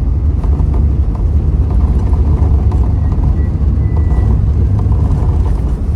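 Steady loud rumble of a 1992 Holden VP Commodore under way at speed, its engine and tyre noise heard from inside the cabin.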